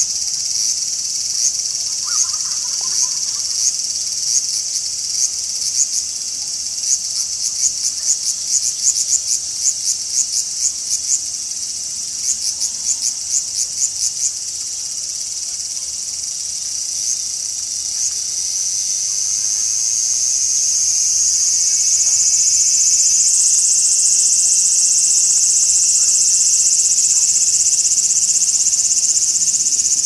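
Large brown cicadas (aburazemi) singing: a high sizzling song of short pulsed chirps repeating several times a second for about the first half, then a continuous buzz that swells and stays loud.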